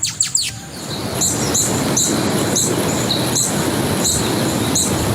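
Hummingbird: short, high, squeaky chirps repeated about twice a second over a steady whirring.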